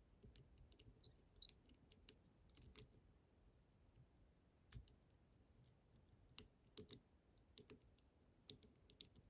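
Faint, irregular clicks of a lock pick probing the tumblers inside a Fichet F3D high-security lock cylinder, checking each tumbler for binding.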